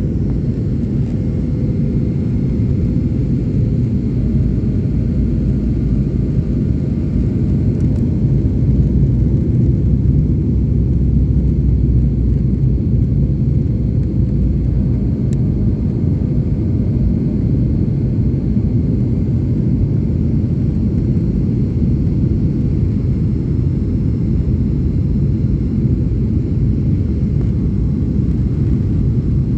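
Airliner engine noise: a steady, loud low rumble.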